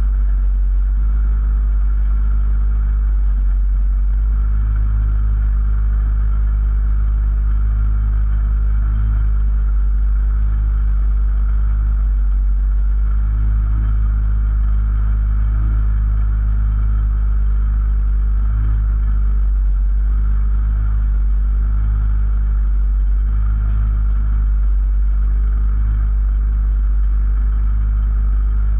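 Rally car's engine idling steadily, heard from inside the stripped, roll-caged cabin.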